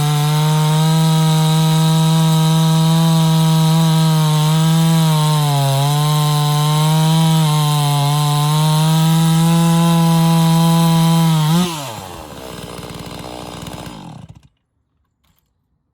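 Holzfforma G660 92cc two-stroke chainsaw running at high revs, its pitch sagging slightly now and then as it cuts through wood. Near the end the throttle is released and the revs fall sharply; the saw runs on briefly at low speed and then cuts off suddenly as it is switched off.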